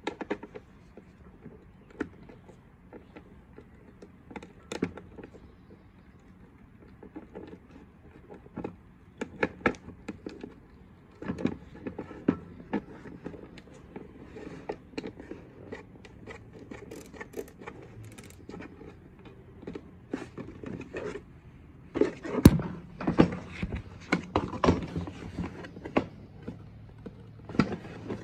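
Hands fitting a plastic cable gland and power cord into a hole in a metal ammo can and tightening it from inside: scattered clicks, taps and knocks on the metal, busiest and loudest in the last quarter.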